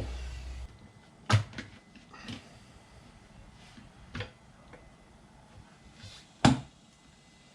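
Tools and parts being handled and set down: a few separate knocks and clicks, the loudest one near the end.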